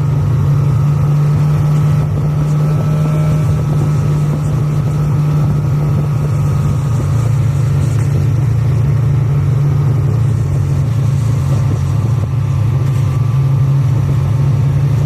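Snowmobile engine running at a steady speed, its note holding even with no revving up or down.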